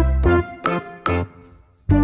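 Background music of short pitched notes over a bass line, dropping away briefly about one and a half seconds in.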